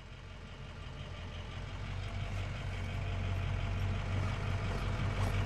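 An engine idling with a steady low hum, fading in from near silence and growing louder.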